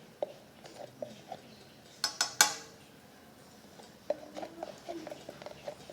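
Spoon clinking against a small dish a few times, with the loudest clinks about two seconds in.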